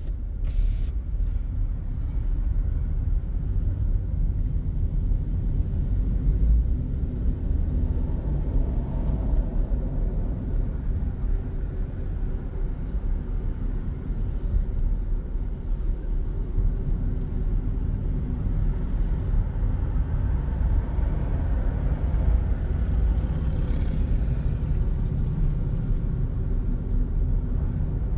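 Car driving on city streets, heard from inside the cabin: a steady low rumble of road and engine noise. A fainter higher tone swells and fades twice along the way.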